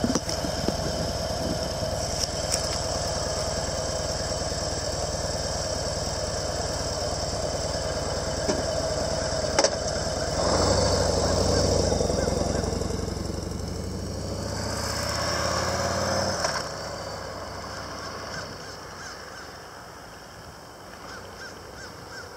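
A motorcycle engine running as the bike rides around. It gets louder about ten seconds in, then drops off sharply after about sixteen seconds and fades away.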